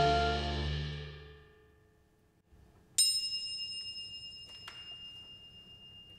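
A sustained orchestral chord of strings and brass fades away over about a second and a half to near silence. About three seconds in, a single high, bell-like metal percussion strike rings out and slowly decays, one high tone lingering, with a couple of faint ticks.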